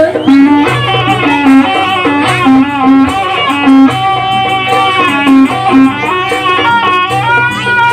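Live jaranan ensemble music: a high melody line with pitch bends over short repeated lower notes and a low, pulsing bass note.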